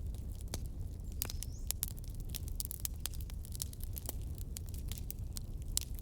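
Wood fire crackling in a fireplace: many sharp irregular pops and snaps over a steady low rumble of the burning.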